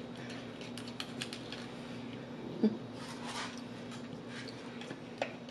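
Light clicks and scrapes of a plastic utensil scooping butter out of a small plastic butter cup and spreading it on a baked potato. A short scraping run comes a little after halfway, and a brief low "mm" comes just before it.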